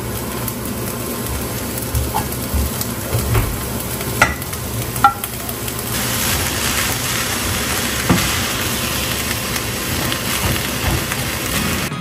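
Leftover sausage rice being stirred into onion and chicken frying in a hot pan: steady sizzling that grows a little louder about halfway through, with a few sharp knocks against the pan.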